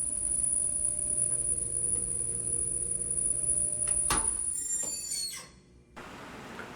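Dryer drum of a Mabe washer-dryer combo turning and making an abnormal rubbing noise, a sign of a fault in the drum. About four seconds in there is a sharp knock, then the sound dies away.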